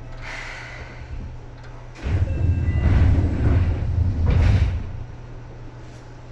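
Seibu 2000 series train's passenger sliding doors working: a short hiss about half a second in, then about two seconds in a heavy rumble of the doors sliding that ends with a second burst of air. A steady low hum runs underneath.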